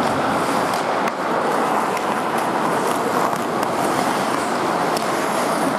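Ice hockey play: a steady scraping hiss of skates on the ice, with a few sharp clacks of sticks and puck.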